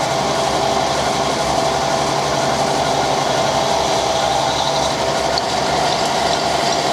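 Metal-cutting machine tool running steadily under a light finishing cut, its motor and gearing giving a constant hum. From about the last second and a half, faint regular ticks come roughly twice a second.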